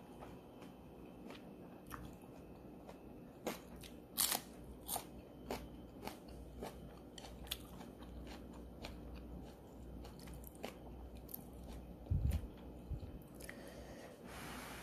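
Close-up eating sounds: crunching and chewing with scattered sharp clicks, a couple of low thumps about twelve seconds in, and a short rushing sound near the end as ramen noodles are lifted.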